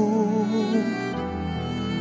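Slow, sad background music with a wavering melody line over sustained lower notes.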